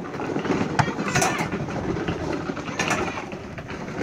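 Car rooftop tent being unfolded by hand: handling noise from the tent's canvas and fold-out base, with a sharp click just under a second in and rustling scrapes about a second and three seconds in.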